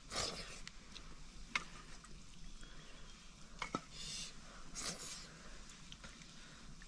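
Faint scattered clicks and short rustles of people eating by hand from metal plates.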